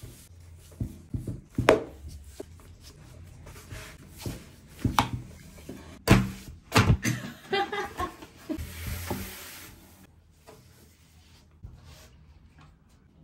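Dough being hand-rolled on a wooden board with a long thin rolling pin: a large thin sheet of dough is lifted, flapped and laid back down, with several sharp knocks of wood on wood and rubbing and rustling between. The loudest knocks come about halfway through, with the handling quieter near the end.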